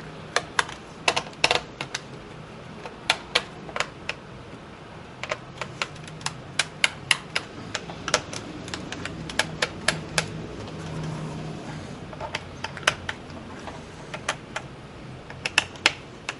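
Irregular sharp clicks and taps of a screwdriver working the screws and plastic bottom access cover of a Dell Inspiron 1525 laptop as the cover is loosened.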